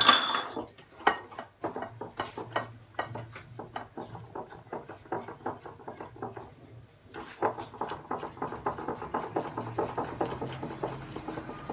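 A whisk clinking and scraping against a ceramic bowl while mixing a creamy egg mixture: one sharp clink at the start, then slow, regular strokes, turning into faster, continuous whisking from about seven seconds in.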